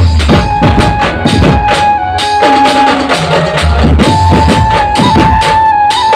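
Dhumal band music played loud: a fast pattern of drum strokes with deep bass-drum hits under a long-held high melody note. The drums come in right at the start, where before there was only the melody.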